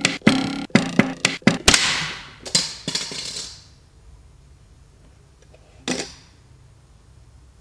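Clear plastic ruler handled on a wooden tabletop: a fast run of sharp clicks and knocks, layered and repeated into a rhythm, then a swishing scrape that fades out about three and a half seconds in. Quiet room tone follows, broken by one knock about six seconds in.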